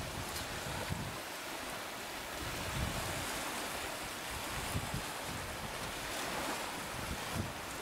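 Strong wind gusting over the microphone, with low rumbling buffets every second or two, over the steady hiss of a choppy, whitecapped sea.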